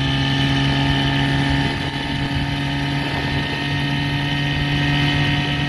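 Veterok-8 two-stroke outboard motor, fitted with a Stihl MS 660 chainsaw carburettor, running steadily at speed and driving an inflatable boat along. The engine note holds an even, unchanging pitch.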